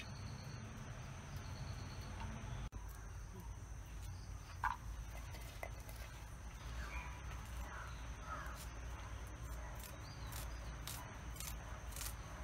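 Birds calling over a steady high insect drone, with one short loud call about five seconds in and a cluster of chirping calls a little later. Light knife clicks from cutting jackfruit seeds come near the end.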